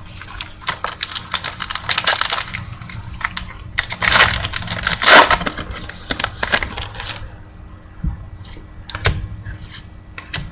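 Football trading cards being handled and flipped through, with a pack wrapper: rustling and snapping noise in bursts and many small clicks, loudest about two seconds in and again about four to five seconds in.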